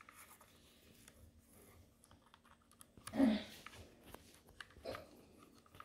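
Faint small clicks and handling noise of fingers and a small screwdriver working screws out of a plastic drone body. A brief low murmur comes about three seconds in.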